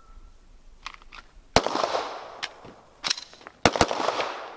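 Pistol fired one-handed at balloon targets: a loud shot about a second and a half in, then more shots around three seconds and near the end, the later ones coming in close pairs, each with a ringing tail. Lighter clicks of gun handling come before and between the shots, as part of clearing a stoppage with one hand.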